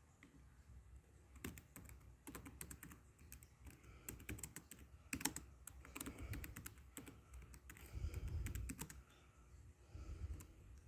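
Faint, irregular clicks of typing on a keyboard, with a soft low rumble of handling noise late on.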